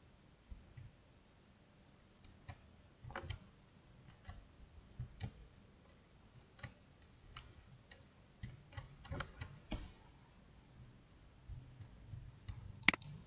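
Faint, irregular clicks and taps, then one loud, sharp click near the end: computer mouse clicks, with the slide advancing right after.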